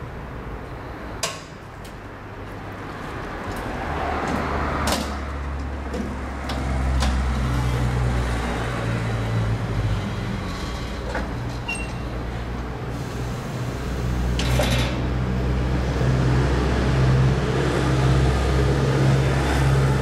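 Small forklift running, a steady low hum of its drive and hydraulics that gets louder as it reverses and lowers the container, with a few changes in level. A few metal knocks in the first five seconds as the metal collection container is handled at the skip.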